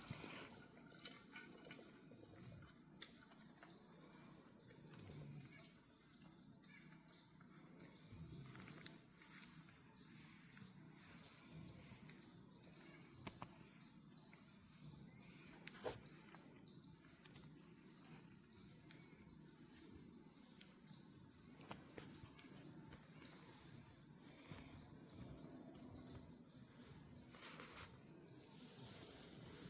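Faint, steady high-pitched chorus of insects, with a few scattered light ticks, the sharpest about halfway through.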